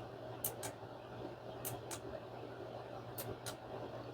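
Faint clicks of a Clocky alarm clock's plastic setting buttons being pressed, three pairs of quick clicks spaced over a low steady room hum, as the alarm time is stepped forward.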